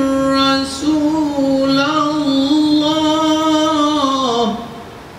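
A man's voice reciting the Quran in the melodic, chanted tajweed style, drawing out the word "walakin" in long held notes that waver slightly. Near the end the voice glides down in pitch and stops.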